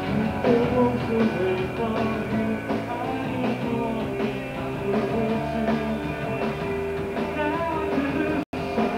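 Rock band playing electric guitar, bass guitar and drums, with a brief dropout near the end.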